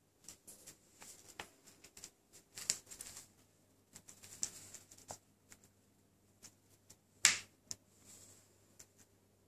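Vertical blind slats and their bottom weights and chain clicking and rustling as a British Shorthair cat paws and noses in among them. The clicks come scattered and light, with one sharp louder click late on.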